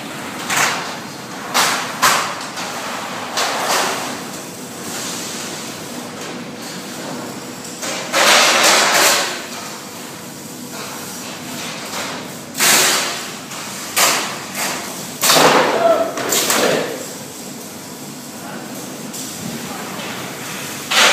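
Multi-head pneumatic spot welding machine for shelf clips cycling: a string of thumps and short rushing bursts at irregular intervals a second to several seconds apart, one longer burst about eight seconds in.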